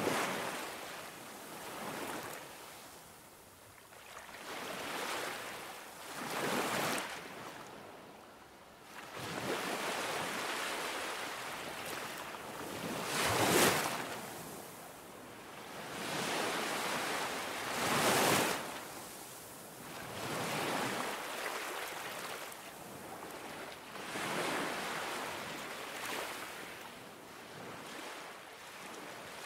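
Ocean surf: waves washing in, swelling and fading every few seconds, with the loudest surges about halfway through.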